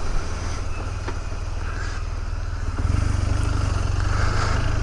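BMW R1200GS boxer-twin engine running while riding, with wind noise over the microphone from an open helmet visor. The engine grows louder about three seconds in.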